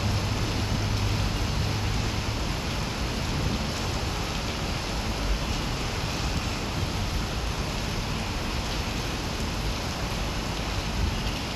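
Steady rain falling on trees and pavement: an even, continuous hiss, with a low rumble underneath that is strongest in the first couple of seconds.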